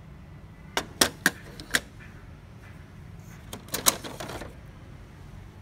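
Sharp plastic clicks and knocks as an HP 19A imaging drum and the printer's internal parts are handled inside an open HP LaserJet M203dn: four separate clicks in the first two seconds, then a quick cluster of clicks and rattling a little past the middle, over a low steady hum.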